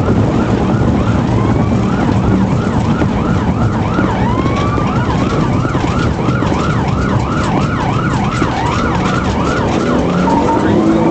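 Police car siren on yelp, its pitch sweeping rapidly up and down about three to four times a second, with a single longer rising sweep about four seconds in, over steady road and engine noise.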